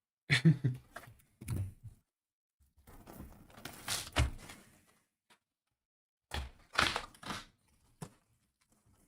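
Handling noise from a hobby box of trading cards: a few dull thunks and knocks with stretches of rustling, as the box and its packs are moved, set down and opened.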